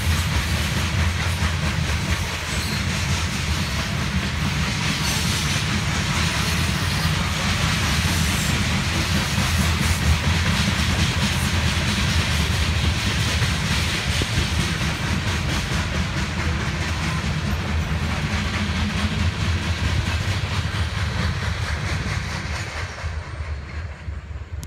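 Covered hopper cars of a Norfolk Southern freight grain train rolling past on the rails: a steady noise of steel wheels on track that fades away near the end as the last car goes by.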